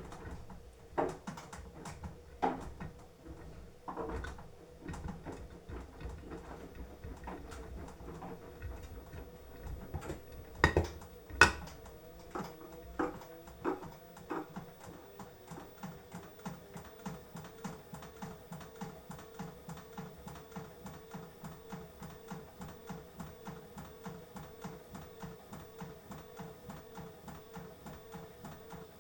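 Beko washing machine drum tumbling the laundry. Irregular thuds and knocks come first, two of them louder about 11 seconds in. From the middle on the motor hums and the drum turns in an even rhythm of about three pulses a second.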